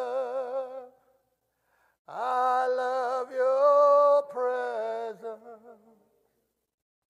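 A man singing a slow worship-song line unaccompanied, holding notes with a wavering vibrato. One phrase fades out about a second in, and after a short pause a second phrase runs from about two to six seconds in.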